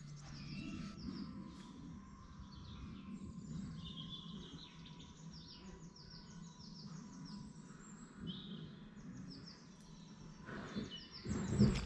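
Many songbirds singing and chirping together, short high notes overlapping and repeating without pause, over a faint low rumble; a brief louder low bump comes just before the end.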